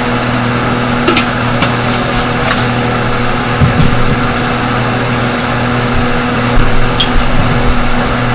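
Stove range hood fan running with a steady hum. A few light clicks and taps sound over it.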